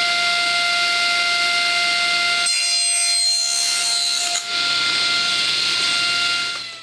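A bench power tool cutting pallet wood: the motor runs with a steady whine, and for about two seconds in the middle the sound turns to a hissing cut as the wood passes through. Near the end it is switched off and the pitch falls as it winds down.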